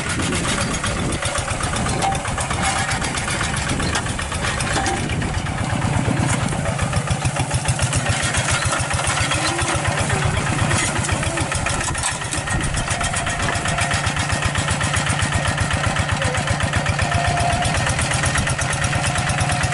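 Two-wheel hand tractor's single-cylinder diesel engine running steadily with an even, rapid firing beat, working under load as it drives its cage wheels through paddy mud.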